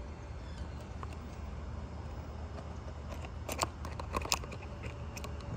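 Light plastic clicks and snaps of a small RC car's body shell and chassis being handled, with a few sharp clicks about three and a half to four and a half seconds in, over a steady low rumble.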